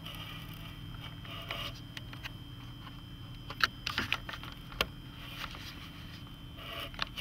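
Small terrier gnawing on a flat chew, making scattered sharp clicks and short crunches of teeth on the chew, with a cluster about halfway through and another near the end.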